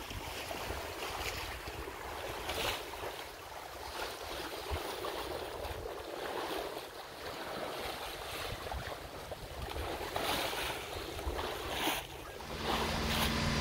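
Wind buffeting the microphone over water rushing past the hull of a sailboat under sail, rising and falling in gusts. A steady low hum comes in near the end.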